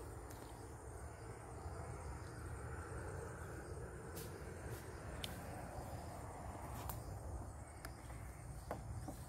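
Faint outdoor ambience: insects chirping in a thin, steady high tone over a low, even rumble, with a few light clicks.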